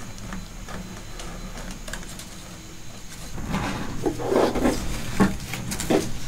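Handling noise from unrolling foam weatherstrip gasket tape along a truck bed rail. A steady low hum runs through it; about halfway in, rustling starts, along with several light knocks.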